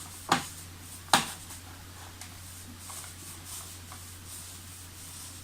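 Two sharp clicks of a computer mouse, under a second apart, then a few faint small clicks over a low steady hum.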